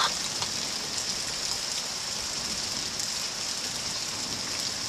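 Thunderstorm rain falling steadily on a wet street: an even hiss with scattered drop ticks, and one brief louder sound right at the start.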